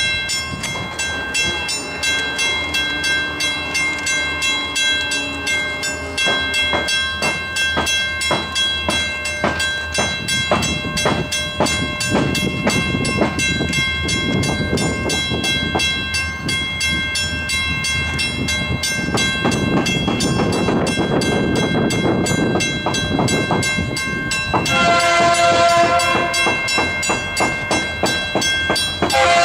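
Approaching diesel freight locomotive's air horn sounding a chord: one blast of about a second and a half near the end, then a second blast starting just at the end, over the low rumble of the train drawing closer.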